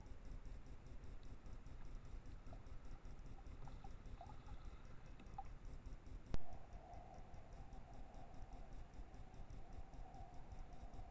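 Trail-camera recording at night: a faint low rumbling background with a few short faint squeaks in the first half. A single sharp click comes about six seconds in, where the recording cuts to the next clip, and a faint steady whine follows it.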